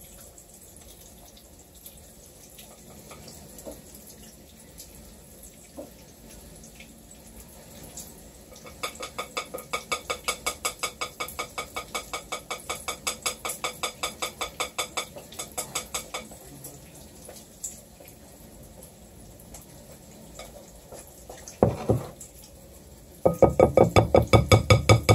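Pancake batter being stirred briskly with a spatula in a mixing bowl: rhythmic knocking against the bowl, about four or five strokes a second. There is one spell through the middle and another, louder, starting near the end.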